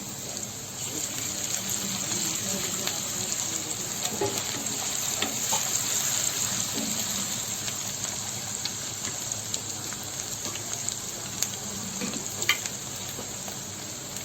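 Chopped onion, green chillies and ginger-garlic paste sizzling in hot oil in a pan, being stirred. The sizzle is a steady hiss that grows a little louder about a second in, with a few sharp clicks of the spoon on the pan near the end.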